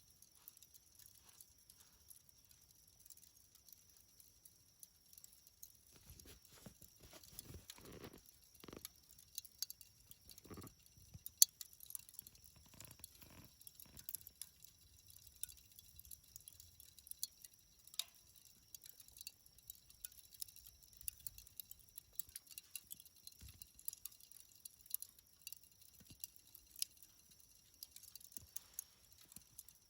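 Burning charcoal in a fire crackling: scattered, irregular sharp ticks and small pops, with one louder pop about eleven seconds in. A few soft low rustles come and go in the middle.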